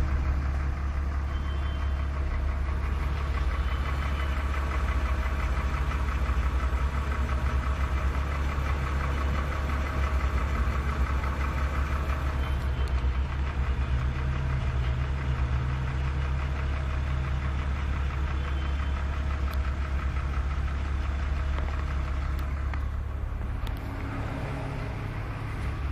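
BMW E46 engine running steadily at idle with a rattle noise over it, a little quieter in the last couple of seconds.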